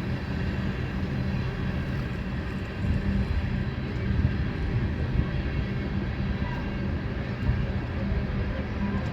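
Coal train rolling by and gaining speed: a steady rumble of wheels on rail under a constant drone of diesel locomotive engines.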